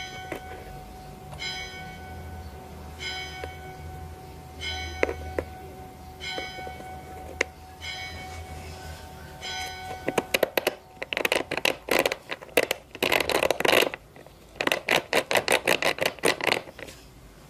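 Metalworking machine cycling: a ringing metallic strike about every second and a half over a steady machine hum, then a long, rapid clatter of metal-on-metal impacts that is the loudest part.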